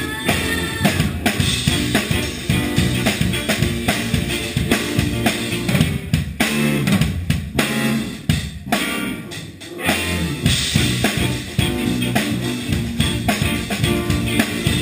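Funk band playing live, heard from beside the drum kit: kick drum, snare and cymbals up front, with electric guitar and bass guitar, and a few short stops in the middle.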